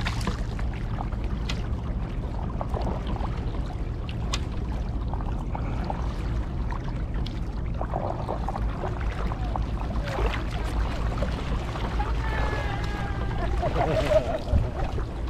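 Wind rumbling on the microphone over water splashing and lapping as a stand-up paddleboard is paddled, with a short splash at each stroke.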